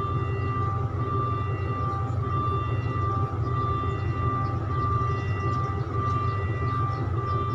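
Diesel train engine running steadily with a low drone and a steady high whine over it.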